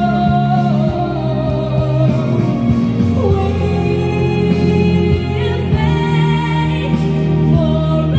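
A song: singing over instrumental backing with a steady low accompaniment, the voice holding long notes.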